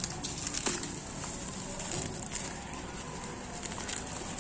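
Plastic bubble wrap crinkling and crackling with scattered small clicks as it is handled and pulled away.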